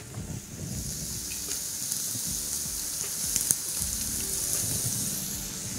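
Julienned courgette and red pepper sautéing in hot oil in a frying pan: a steady sizzle that swells about a second in, with a couple of light clicks near the middle.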